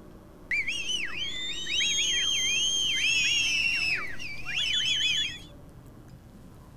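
Whistling sound effect: several overlapping high-pitched whistles that swoop up and down in quick arches, with some notes held steady. It starts about half a second in and cuts off a little after five seconds.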